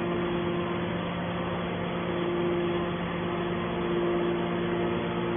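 Hydraulic pump unit of a Q43 scrap metal alligator shear running with a steady hum.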